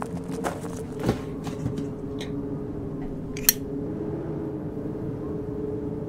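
Footsteps crunching on heaped junk for the first second or two, then a single sharp click about three and a half seconds in, over a steady low drone.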